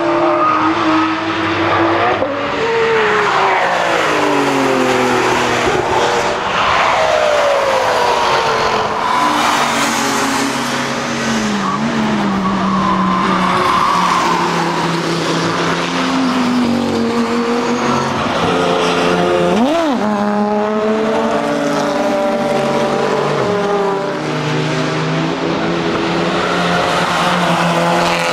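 Several racing-car engines running hard past the track, their notes overlapping and gliding up and down as the cars pass, shift gear and brake. About twenty seconds in, one engine note sweeps sharply up and back down.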